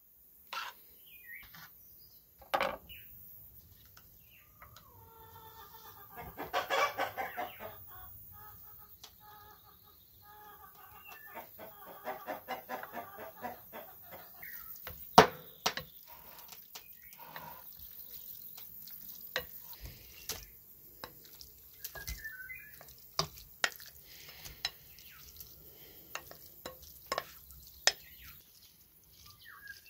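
Chickens clucking, with a loud stretch of calls about six seconds in and a run of rapid clucks around twelve seconds. Scattered sharp knocks of a knife on a wooden cutting board and a wooden spoon against a glass bowl.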